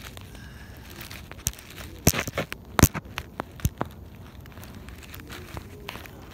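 Phone being handled and propped up on dry grass: a scatter of sharp clicks and crackles on the microphone, thickest about two to four seconds in.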